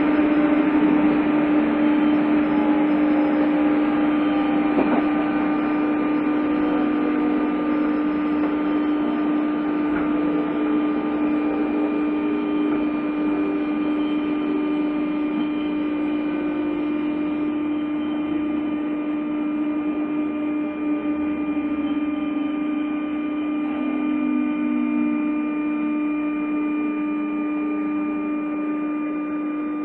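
Inside a JR East 201 series chopper-controlled electric train: a steady electrical hum under a whine from the traction motors and gears that slowly falls in pitch as the train brakes for a station stop.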